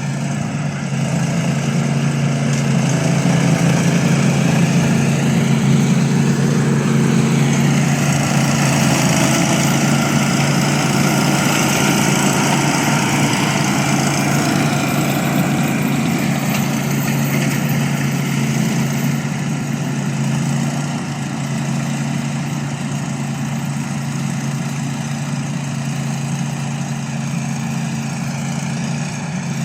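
Remote-control lawn mower's engine running steadily, a little louder a few seconds in and easing off slightly after about twenty seconds.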